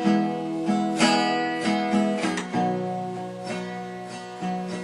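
Acoustic guitar strumming chords in an instrumental break between sung lines.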